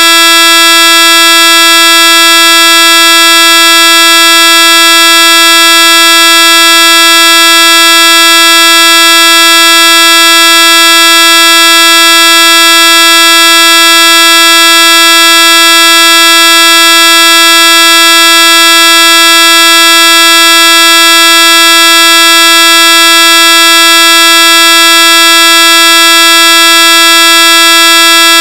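Corrupted anti-piracy screen sound effect: a very loud, harsh electronic tone held at one pitch, buzzy with many overtones, unchanging throughout.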